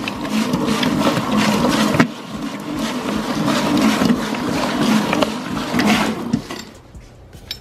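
Stand mixer running, its dough hook kneading thick slime in a stainless steel bowl: a steady motor hum with repeated short knocks and slaps as the slime turns. The sound dies down about six and a half seconds in.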